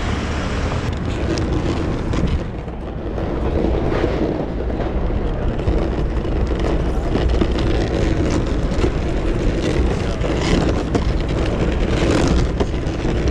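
City street traffic noise with a steady low rumble of wind and road noise on the microphone of a moving rider.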